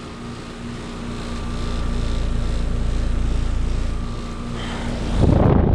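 A five-ton American Standard Heritage 15 heat pump's outdoor unit running, with a steady compressor hum and the low rush of its fan that builds over the first couple of seconds. A loud rumbling burst comes near the end.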